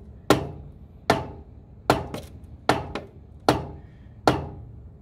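Heavy rubber mallet striking the end of a 4-inch ABS sewer pipe, six blows about one every 0.8 seconds, driving the pipe inside an old collapsing Orangeburg sewer line about a quarter inch per blow.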